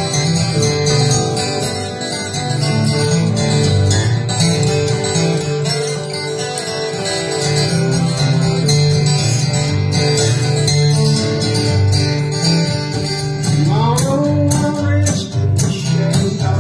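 Several acoustic guitars played together in a steady strummed rhythm, with singing coming in about fourteen seconds in.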